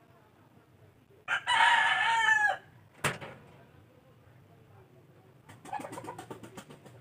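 A rooster crowing once, a single call of about a second. A sharp knock follows, and near the end comes a quick run of short, rapid sounds.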